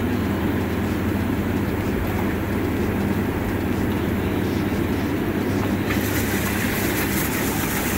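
Artesian Spas Dove Canyon hot tub's seven jet pumps running, a steady low hum under the rush of water through the jets. A louder rushing hiss joins about six seconds in.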